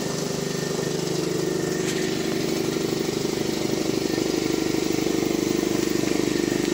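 Old Quincy 210 air compressor, belt-driven by an electric motor, running steadily with a rapid even pulse as it pumps up a 30-gallon tank from empty; it runs quiet.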